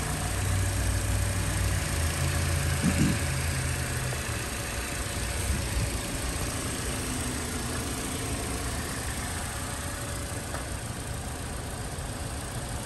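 Toyota Corolla's Dual VVT-i four-cylinder engine idling steadily.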